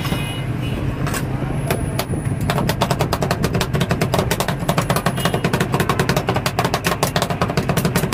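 Two steel spatulas striking a stainless-steel ice-cream cold plate, chopping sauce into the ice-cream mix. A few single taps come first, then a rapid, continuous metallic clatter from about two and a half seconds in, over a steady low hum.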